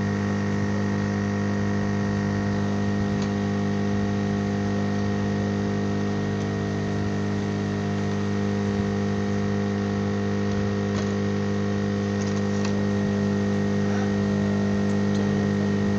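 Steady electrical hum from repair-bench equipment, switched on just before and holding a constant pitch, with a buzzing edge and a thin high whine above it.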